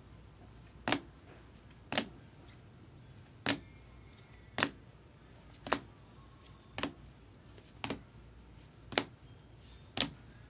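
A steady run of sharp clicks, about one a second.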